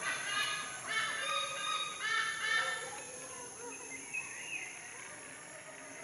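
White-bellied sea eagle giving a rapid series of loud, goose-like honking calls that stop about three seconds in. A steady high-pitched hiss continues beneath.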